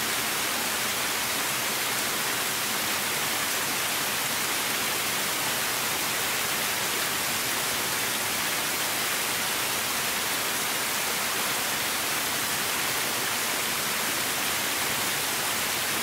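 Steady, even hiss of falling water, unchanging throughout.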